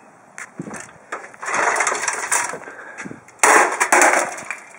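A Sony CDP-CE305 CD player smashing onto asphalt: a clattering noise about a second and a half in, then a sudden loud crash of the player's casing hitting the pavement about three and a half seconds in.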